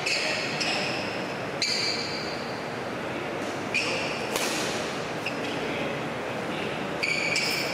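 Court shoes squeaking sharply on the sports-court floor several times as badminton players move about, with a couple of sharp racket strikes on the shuttlecock, over steady sports-hall background noise.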